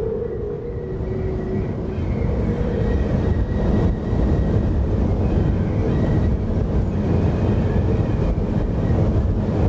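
Ambient sound-design drone: a dense low rumble with faint sustained tones held above it, growing a little louder about two seconds in.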